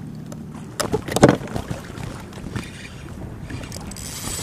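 A sudden loud clatter of knocks or splashing about a second in. Near the end a spinning fishing reel whirrs steadily as its handle is cranked to retrieve line.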